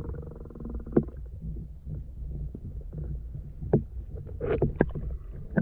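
Steady low rumble of wind on the microphone, broken by a handful of short sharp knocks: one about a second in, then a cluster late on and one at the very end.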